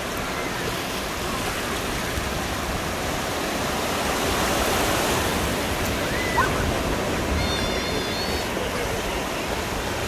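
Small ocean waves breaking and washing up a sandy beach, a steady rush that swells a little around the middle. A short sharp sound stands out about six seconds in.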